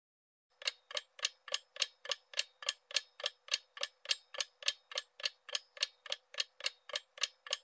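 Clock-ticking sound effect for a quiz countdown timer: sharp, even ticks about three or four times a second, starting about half a second in.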